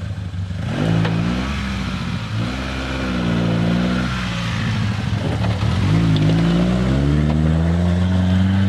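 Off-road 4x4 vehicle engine revving under load in mud, its pitch rising and falling in several waves, then climbing steadily near the end.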